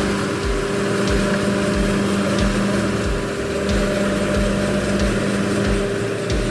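Brick-making machine running: a steady mechanical hum with a low thud repeating about twice a second.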